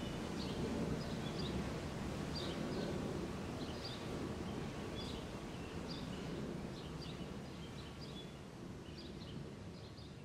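Outdoor evening ambience: a steady low background rumble with short, high chirps repeating one or two times a second. The sound fades down toward the end.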